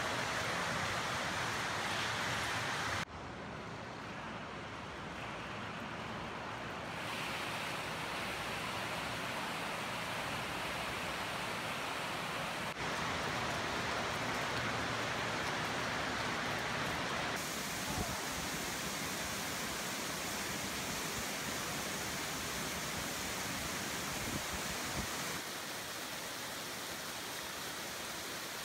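Water rushing down a 50-to-1 scale hydraulic model of the Oroville Dam spillway: a steady, noisy rush of flowing water that changes abruptly in level and tone several times.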